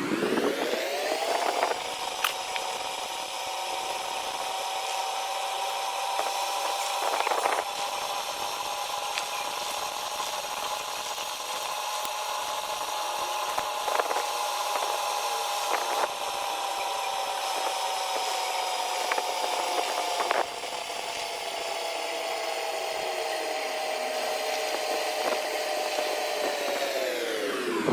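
A small electric motor spinning up, running at a steady high whine for about 25 seconds with a few scraping and ticking contacts, then winding down at the end.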